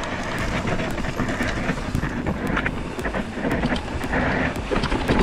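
Mountain bike rattling and clattering down rough rock: chain slap, tyre and frame knocks and clicks, growing louder toward the end.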